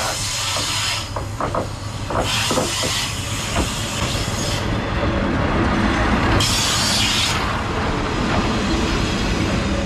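Nishikigawa Railway diesel railcar at a station, its engine running with a steady drone. Three bursts of air hiss, each about a second long, and a few clanks in the first few seconds.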